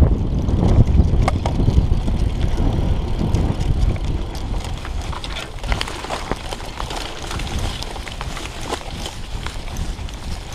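Mountain bike riding off-road, heard from a chest-mounted camera: a low rumble of wind on the microphone and tyres on rough ground, with scattered clicks and rattles from the bike. The rumble eases after about four seconds.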